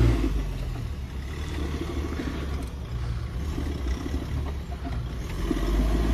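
Mahindra Scorpio's engine in 4x2 working under load as the SUV sits bogged down and struggling for traction with its wheels slipping. The revs drop away at the start, run lower and unevenly with short swells, then rise loud again near the end.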